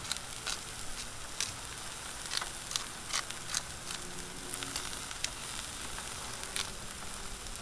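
New York strip steaks searing on a hot Blackstone 22-inch griddle's flat steel top, sizzling steadily with scattered small pops.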